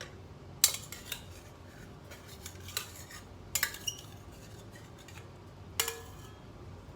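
A metal utensil clinking and scraping against cookware: about five sharp, irregular knocks, a couple of them ringing briefly.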